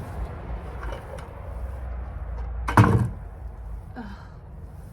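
A single heavy thump about three seconds in, a 5-gallon plastic bucket of soil knocked down against the ground to tip out the soil, over faint handling noise.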